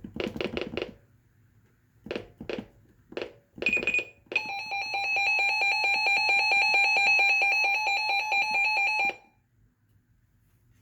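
Weather radio beeping: a quick run of tones, then single key beeps as its buttons are pressed, then an electronic alert tone that sounds for about five seconds, rapidly pulsing, and cuts off.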